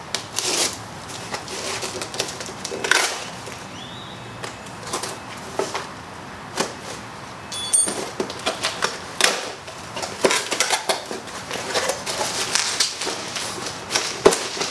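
A small cardboard shipping box being opened by hand: packing tape picked at and torn, and the cardboard flaps rustling, crackling and scraping in an irregular run of small clicks.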